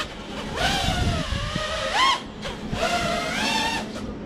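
FPV freestyle quadcopter's brushless motors and propellers whining, the pitch surging up and falling back several times as the throttle is punched and cut, with a brief drop-off about two and a half seconds in.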